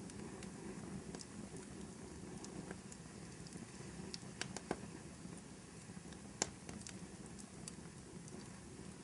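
Wood fire crackling in a fireplace: a steady low rumble of flames with scattered sharp pops and snaps, two of them louder about halfway and two-thirds of the way in.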